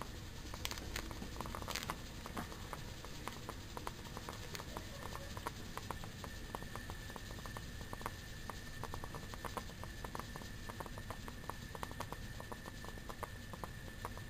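Homemade test-tube aeolipile heated by a Bunsen burner: the water inside is boiling, with rapid, irregular crackling clicks throughout. A thin steady whistle joins about two seconds in as the steam jets out.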